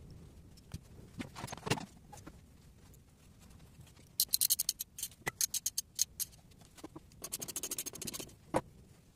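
Hand tools working the studs on a car cylinder head: scattered metal clinks, and two runs of quick, even clicking about four and seven seconds in.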